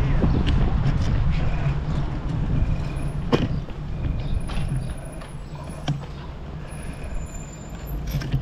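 Wind noise on the microphone of a camera carried on a moving bicycle, with a few sharp knocks as the bike rolls over brick paving. The rumble drops off about halfway through as the bike slows.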